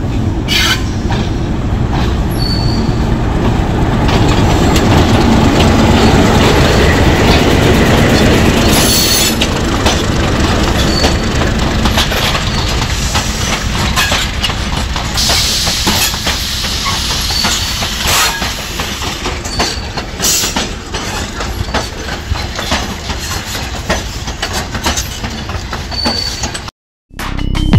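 Loaded freight train rolling slowly past at close range. A diesel locomotive's engine is heard running in the first few seconds, then the covered hopper wagons pass with clicks and knocks of the wheels over rail joints and short high wheel squeals now and then.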